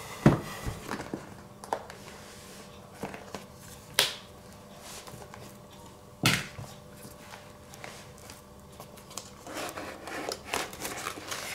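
Handling of a cardboard tablet box and its lid: three sharp knocks and taps, the first just after the start and the others about 4 and 6 seconds in, among small clicks. Light rustling near the end as the tablet is taken out of its tray.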